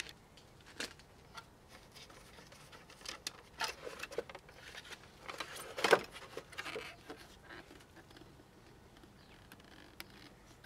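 Scattered light clicks and knocks from hands handling a small portable reel-to-reel tape recorder as its plastic reels are lifted off and the case is handled. The loudest knock comes about six seconds in.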